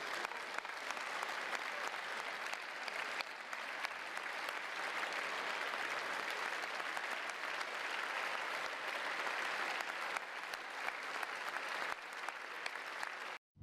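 Large audience applauding steadily, a dense even patter of many hands clapping, which cuts off abruptly just before the end.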